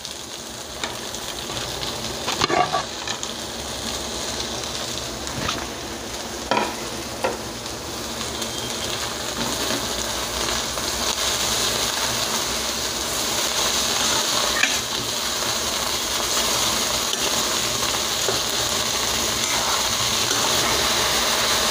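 Chopped amaranth leaves sizzling in hot oil in an aluminium kadai as they are stirred with a steel spoon, which knocks and scrapes against the pan now and then. The sizzle slowly grows louder as the leaves heat up.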